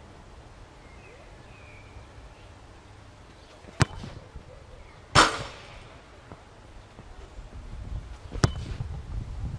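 A football kicked hard on artificial turf: a sharp thud of the boot striking the ball about four seconds in, then a louder hit with a short rattling ring-out just over a second later as the ball strikes something downfield, and another sharp kick near the end.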